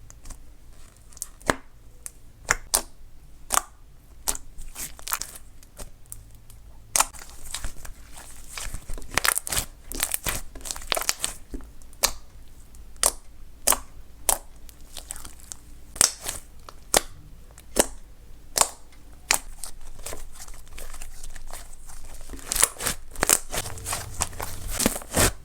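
Slime being pressed, stretched and poked by hand, giving off irregular sharp pops and clicks with a crackly, crinkling sound between them; the pops come thicker after the first several seconds.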